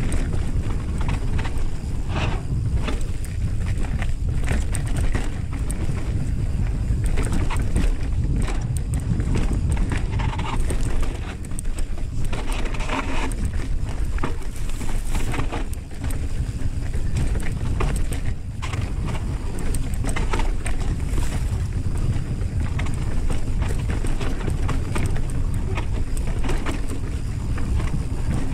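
Wind buffeting the camera's microphone as a mountain bike rides down a dry dirt and rock trail, with the tyres crunching and the bike rattling in frequent clicks and knocks.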